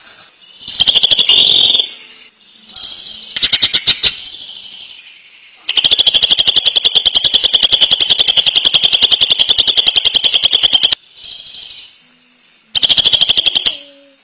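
Cucak ijo (green leafbird) singing in fast, even rattling trills, the 'ngentrok' song. There are four bursts, the longest running about five seconds.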